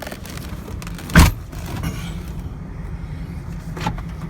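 Minivan on the move, heard from inside: steady low road and engine rumble, with one sharp thump about a second in and a lighter knock near the end.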